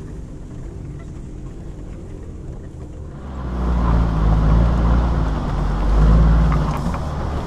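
Land Rover Defender engine running as it drives up a wet gravel mountain road, at first a steady hum heard from inside the cab. About three and a half seconds in it turns much louder, a heavy low rumble with a rushing noise over it, swelling twice.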